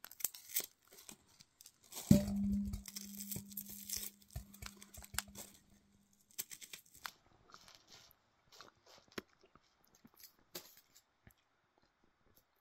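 Raisins being sorted by hand on a round metal tray: scattered small clicks and rustles as they are pushed about. About two seconds in, a knock on the tray sets it ringing with a low steady tone that dies away over about four seconds.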